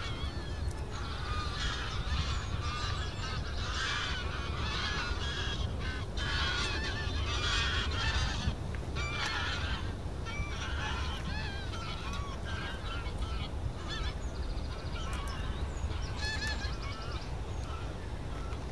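A flock of greylag geese honking in flight, many overlapping calls, busiest in the first half, over a steady low rumble.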